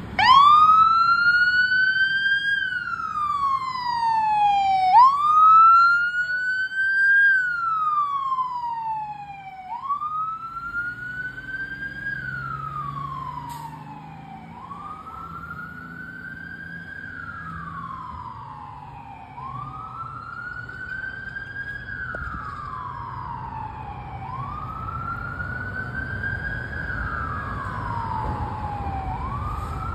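Fire engine's wail siren, rising and falling in a repeating cycle about every five seconds. It is loudest at the start and then fades as the truck drives away, with a low engine rumble underneath.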